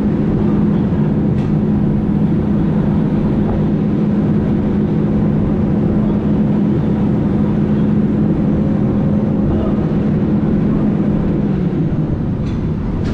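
Heavy construction machine's diesel engine running steadily under work, with a constant low hum. The hum eases slightly near the end.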